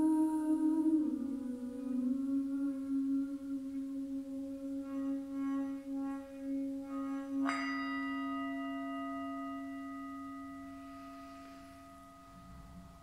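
Large metal singing bowl ringing as a wooden mallet is run around its rim, the tone pulsing, then struck once about seven and a half seconds in and left to ring out, fading slowly to nearly nothing.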